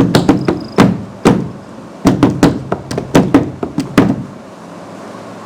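An irregular series of sharp taps and knocks, about three or four a second, stopping about four seconds in.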